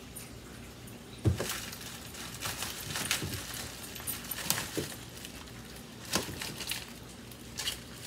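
Scissors snipping through a clear plastic bag, with the plastic rustling and crinkling in short, irregular bursts and a sharp click a little over a second in.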